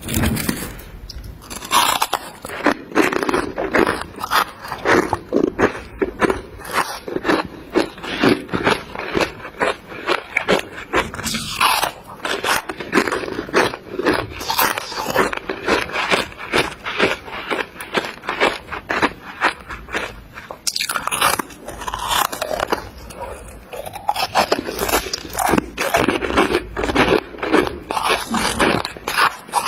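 Close-miked biting and chewing of big chunks of refrozen freezer frost: a continuous run of crisp crunches, several a second.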